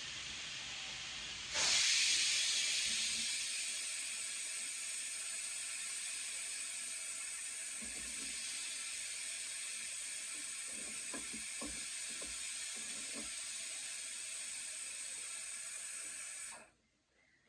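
Steady hiss that jumps louder about two seconds in and cuts off suddenly near the end. Underneath it, faint crunching of potato chips being eaten.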